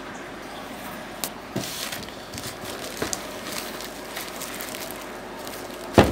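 Plastic courier bag crinkling and rustling in short bursts as it is pulled open by hand, with one loud knock near the end.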